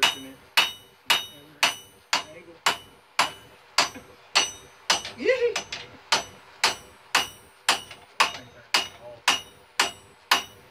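Blacksmith's hand hammer striking red-hot steel held in tongs on an anvil, forging it at a steady pace of about two blows a second, each blow ringing briefly.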